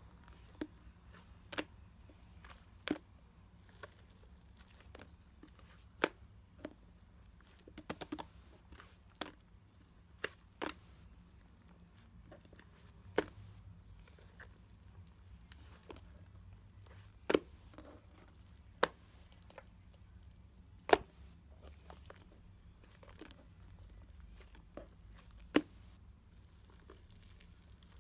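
Irregular sharp taps and clicks, one every second or two, over a faint low hum, like small objects being handled close to the microphone.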